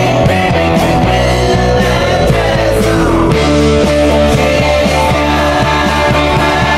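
Loud rock music with a steady beat and sustained bass notes.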